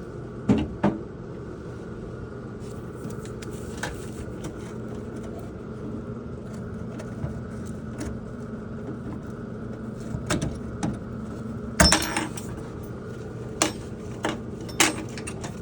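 Sharp metallic clicks and clinks of a tool working the retaining clips off a tankless water heater's water adjustment valve. The taps are scattered, with the loudest cluster a little after the middle, over a steady low hum.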